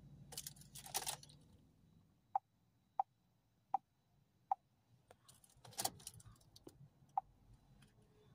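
Ignition being switched off: keys rattle and the low hum of the 2.0 TDCi diesel dies away in the first second or so. After that comes a series of short, single-pitched electronic beeps, four about two-thirds of a second apart and then two more spaced out, with another rustle of keys about six seconds in.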